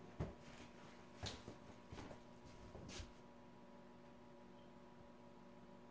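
Near silence: a few faint footsteps in the first three seconds, then only room tone with a steady faint hum.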